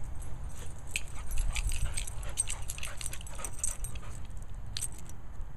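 Boxer dog moving about on grass close to the microphone, with light, irregular metallic jingling and a low rumble of wind or handling on the microphone.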